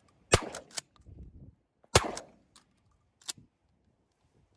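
Two shotgun shots about a second and a half apart, each a sharp crack with a short tail, fired at flighting ducks, followed by a lighter crack about three seconds in.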